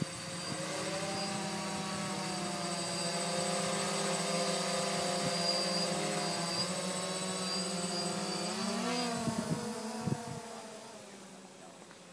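DJI Phantom quadcopter's electric motors and propellers hovering close by, a steady buzzing hum of several tones. About nine seconds in the pitch bends as the drone moves off, and the hum fades as it climbs away.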